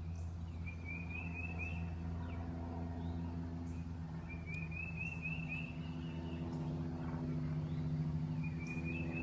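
A bird sings a short phrase of quick rising chirps three times, over a steady low hum.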